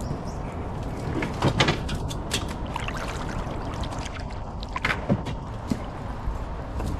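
Kayak hull knocking and scraping, with water sloshing, as a paddler climbs into the boat. The knocks are scattered and irregular, with a few sharper ones in the middle.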